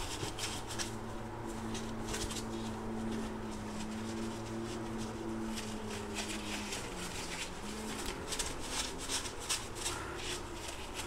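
Rubber-coated work gloves rustling and rubbing as they are pulled onto the hands, with quick handling noises that come thickest near the end. Behind them is a steady low hum, with a higher steady tone that stops about two-thirds of the way through.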